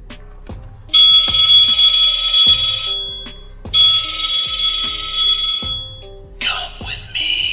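Background music with a steady beat, cut across by two shrill, ringing, alarm-like electronic bursts of about two seconds each, which are the loudest thing here. A wavering, sliding shriek follows near the end.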